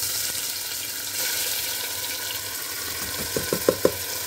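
Chopped tomato-and-onion masala sizzling as it is tipped into hot oil in a pressure cooker: a steady hiss. Near the end, four quick knocks as the plastic chopper bowl is tapped against the cooker.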